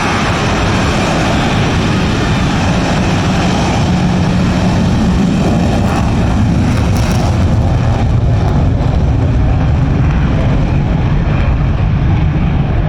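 Loud, steady jet roar of twin-engine F/A-18 Hornet fighters taking off, a deep rumble that holds its level while the hissing top end dies away over the second half.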